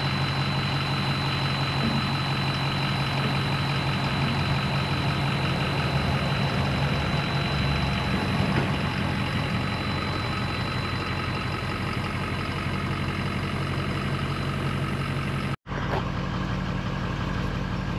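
Pickup truck engine idling steadily. Near the end the sound cuts out for an instant, then the idle carries on.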